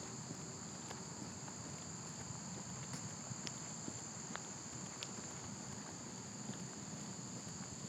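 Steady high-pitched insect chirring over a low, even rumble, with a few faint ticks.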